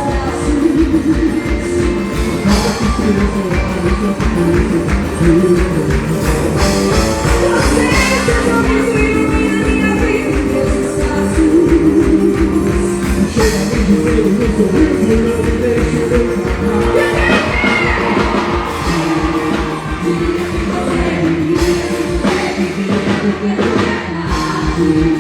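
Loud São João festival music with singing over a steady beat, played for a quadrilha junina dance.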